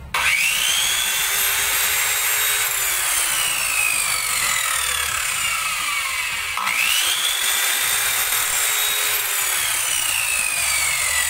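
Corded circular saw, a Class A copy of a Makita, run with no load: the motor whines up to speed, is released and spins down, then is started again about six and a half seconds in and spins down again near the end.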